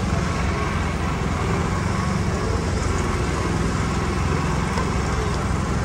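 A steady, low engine rumble, an engine running evenly throughout.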